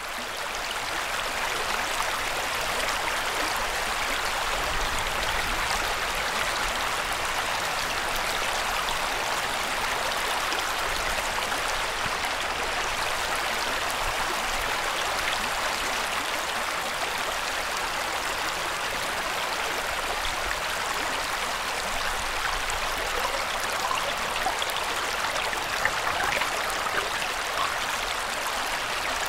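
Shallow river water running steadily over stones and pebbles, an even rushing babble.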